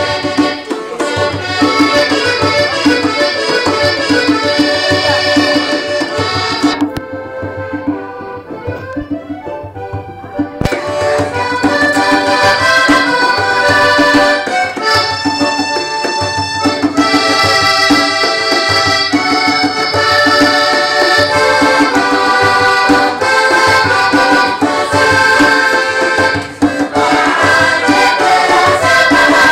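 Diatonic button accordion playing a lively folk tune, with a hand drum beaten along under it. The playing goes softer for about three seconds roughly seven seconds in, then returns at full strength.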